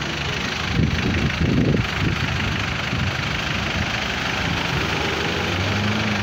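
Street traffic at a city intersection: vehicle engines idling and cars passing, with a louder low engine swell about a second in.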